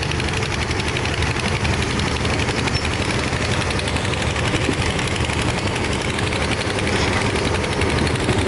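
Kobelco SK210 hydraulic excavator's diesel engine running under working load with a steady, fast pulsing beat as the machine digs wet sand.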